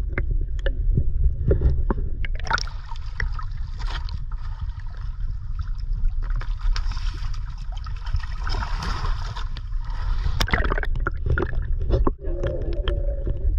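Sea water sloshing and splashing around a camera held at the surface beside a boat's hull while a hooked ray is hauled up on a rope line, with irregular knocks and a hiss of churned water swelling in the middle. A steady low rumble runs underneath.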